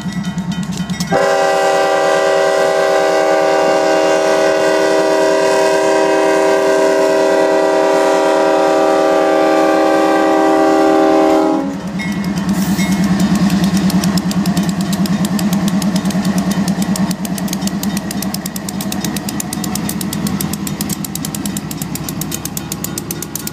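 Union Pacific diesel locomotive's air horn blowing one long chord of several notes, starting about a second in, held for about ten seconds and cut off sharply. After it stops, the locomotive's engine and the passing train carry on, with the crossing's mechanical bell ringing in rapid, even strokes.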